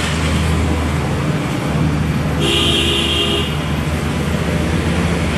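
Steady low rumble of motor vehicle traffic, with a single short toot lasting about a second, about two and a half seconds in.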